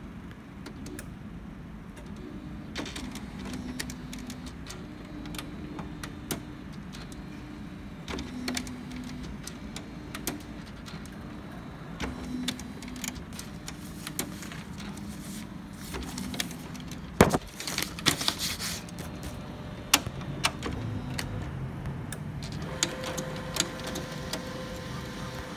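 HP LaserJet CP1025nw colour laser printer running as it prints a supplies status report: a steady mechanical whir with short low tones and repeated clicks, and a cluster of louder clicks about two-thirds through. A steadier higher whine comes in near the end as the printed page comes out.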